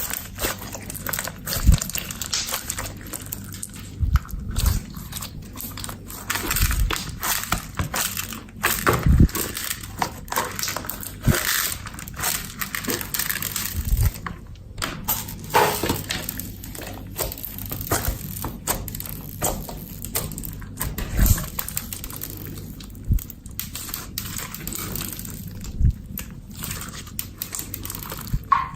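Clear slime being squished and kneaded by hand, with many irregular sticky pops, clicks and crackles.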